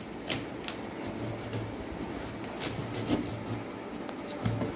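Cardboard shipping carton of a microwave oven being opened by hand: scattered sharp clicks and scrapes of tape and flaps, with a faint low hum in the middle.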